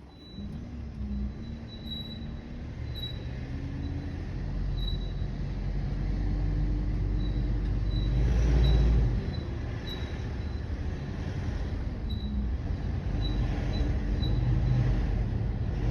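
Rear right wheel of a restyled Mitsubishi Pajero Sport 3 squeaking while driving: a short high squeak repeats in step with the wheel's turning, coming more often as the car gathers speed, over the low rumble of engine and road.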